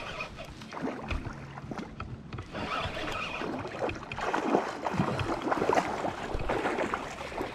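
River water splashing and swirling at the bank, irregular and growing louder a little past the middle.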